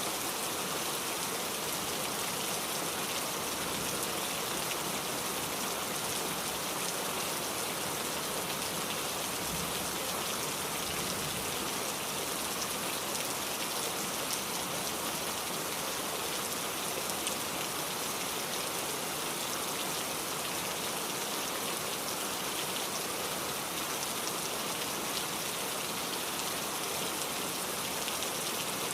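Heavy rain falling steadily, a dense even hiss of raindrops on surfaces.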